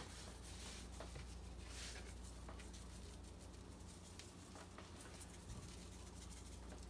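Dry seasoning shaken from a shaker onto raw whole chickens in a metal baking tray: faint, soft shaking strokes over a low steady room hum.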